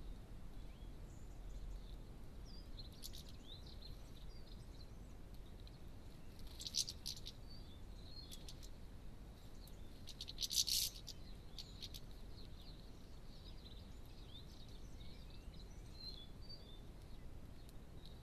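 European goldfinches twittering at a seed feeder: short, high chirping notes scattered throughout, with two louder, brief bursts about seven and eleven seconds in. A low background rumble runs underneath.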